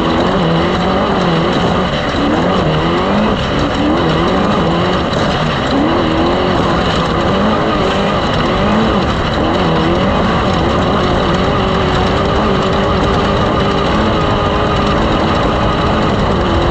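A loud engine running, its pitch rising and falling over and over, then holding steady over the last few seconds.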